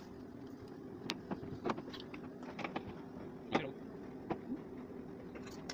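Screwdriver and metal cabinet-hinge hardware clicking and tapping irregularly while a wooden cabinet is unscrewed, with the sharpest tap about three and a half seconds in, over a steady low hum.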